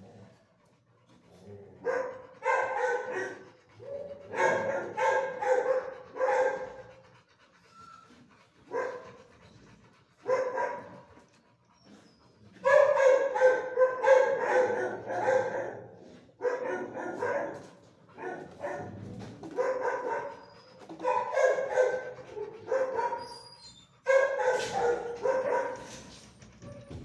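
Dogs barking in kennel runs, in repeated bouts of quick barks a second or two long with short pauses between.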